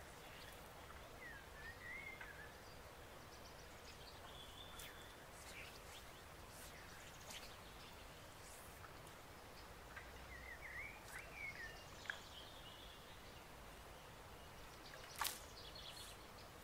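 Quiet riverside ambience: a faint steady wash of flowing water with songbirds calling, a short warbling phrase about a second in and another about ten seconds in, among scattered brief chirps. A single sharp click near the end.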